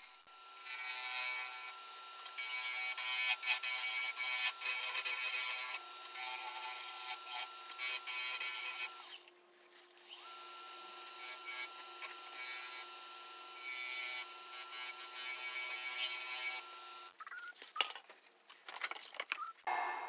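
Wood lathe running with a turning tool cutting the spinning alligator juniper: a steady high motor whine under hissing, scraping cuts. It goes quiet for about a second around nine seconds in, then resumes, and ends in a few scattered scrapes.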